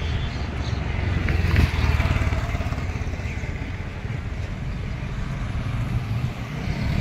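Road traffic: cars and scooters running past, a steady low rumble that swells briefly about a second and a half in.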